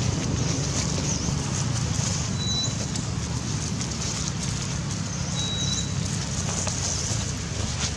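Outdoor ambience: a steady low rumble under short high chirps that repeat about once a second, with two brief thin high whistles.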